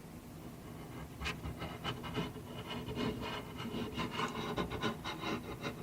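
Watercolour pencil scribbling on primed Yupo paper: quick, irregular scratchy strokes, several a second, starting about a second in.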